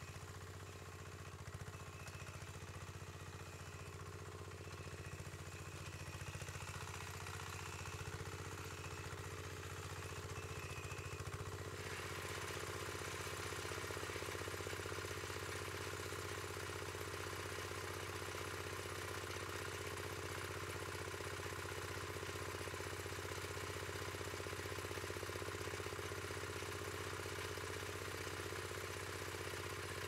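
Small engine of a homemade tracked vehicle running steadily as it pulls a plough through the soil, with some clatter. About twelve seconds in it grows louder and brighter, and stays so.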